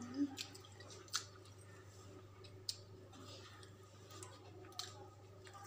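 Quiet hand-eating sounds: a handful of soft, irregularly spaced clicks and smacks from fingers working rice on a steel plate and from chewing, over a low steady hum.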